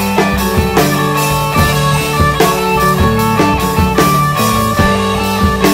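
Background rock music: guitar over a drum kit, with a steady beat.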